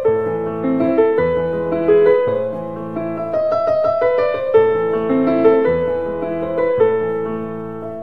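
Intro piano music: a steady flow of melody notes over held low notes.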